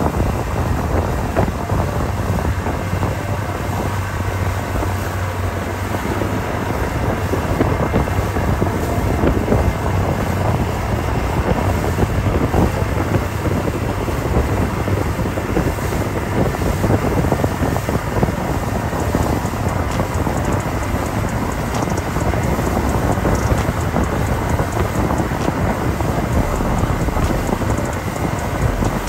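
Wind rushing over the microphone on a speedboat running at speed, over the steady hum of its engine and the churning of its wake.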